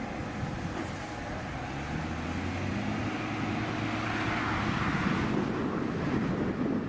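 A boat engine running steadily at a low pitch, the pitch rising a little about two to three seconds in, over wind and water noise that grows louder toward the end.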